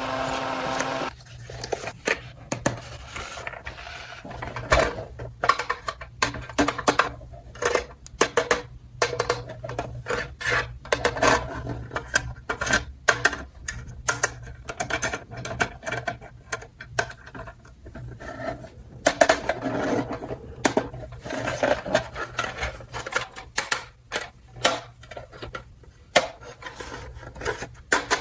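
Plastic toy pieces being handled and fitted together: irregular clicks, taps and rubbing. A steady buzzing hum cuts off suddenly about a second in.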